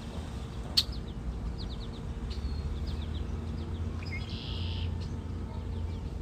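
A bird calling from a tree with short, high, falling chirps and a buzzy note about four seconds in. A sharp click about a second in, over a steady low rumble.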